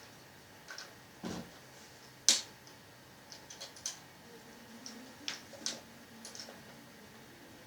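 Scattered light clicks and taps of small gun parts being handled and fitted together on an airsoft rifle's gas-blowback bolt assembly, with one sharper click about two seconds in.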